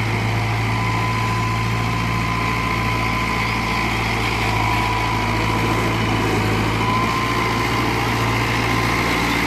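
Mahindra Arjun Nova 605 DI-i tractor's diesel engine running steadily, a constant low drone with a thin steady whine above it.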